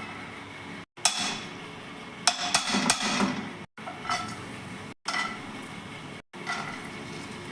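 Kitchen utensils and cookware clinking and knocking in a few short bursts, with a quick run of sharp clinks about two to three seconds in. The sound is broken by brief silent gaps.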